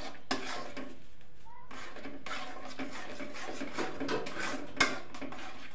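Metal spoon scraping and clinking against a steel karai as thick carrot halwa is stirred, with a sharper clink near the end.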